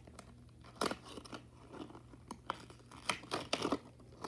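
Packaging being opened by hand: irregular rustling, crinkling and sharp clicks as it is torn and pulled apart.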